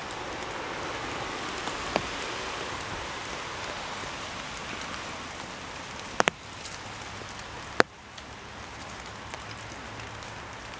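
Steady hiss of water, broken by a few sharp clicks: one about two seconds in, a quick pair about six seconds in, and one more near eight seconds.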